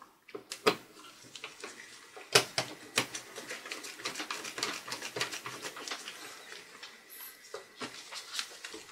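Precision screwdriver driving small screws into a laptop's metal touchpad bracket: a few sharp clicks of the bit and screw against metal, then a quick run of small ticks and scrapes as the screws are turned in.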